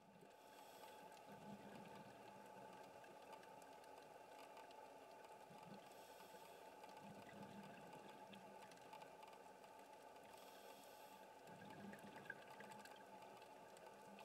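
Faint underwater ambience picked up through a camera housing: a steady low hiss with scattered small clicks, and a scuba regulator's breath hissing every four or five seconds.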